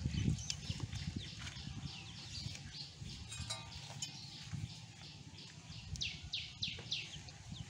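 Birds chirping over and over in short, falling chirps, with soft low thumps and rustling from a chicken carcass being skinned and handled.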